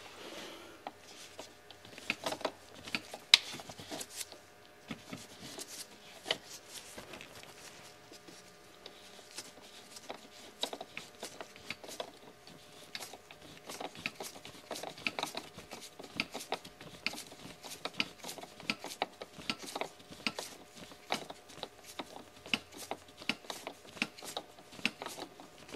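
Irregular light clicking and rubbing from a Ford Super Duty seat's manual lumbar adjuster being turned, as the freshly repaired lumbar support pushes out into the seatback.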